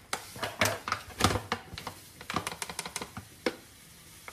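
Paper bag of granulated sugar crinkling and crackling in quick, irregular clicks as it is lifted and tipped to pour sugar into a measuring cup; the crackles thin out after a couple of seconds.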